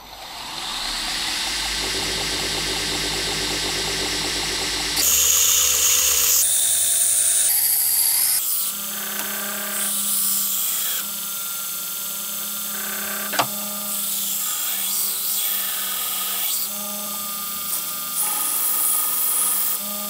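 Belt grinder running while a knife blade made from old bearing steel, held in a bevel jig, is ground against the abrasive belt; the grinding noise swells and eases in waves from about five seconds in as the steel is worked across the belt. One sharp click about two thirds of the way through.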